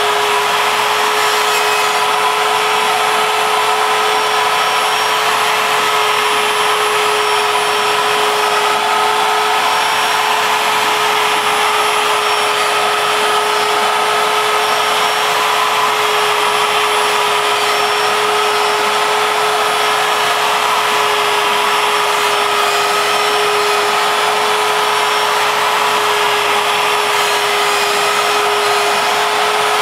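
A CNC router's spindle running at high speed with a steady high whine as its bit cuts MDF, under the steady rush of a vacuum drawing the dust off through a dust shoe.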